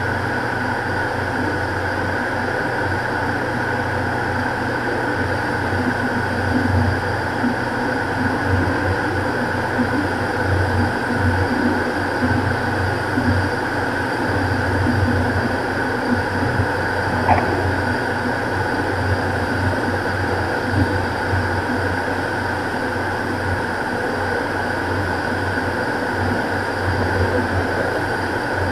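Beechcraft King Air's twin Pratt & Whitney PT6A turboprops and propellers droning steadily in cruise, heard inside the cockpit as a constant hum with airflow noise.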